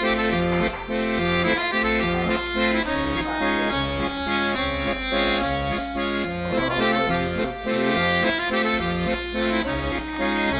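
Instrumental background music with sustained notes and chords changing in a steady pattern.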